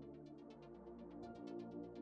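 Quiet electronic background music with a steady, quick hi-hat-like beat and sustained synth tones.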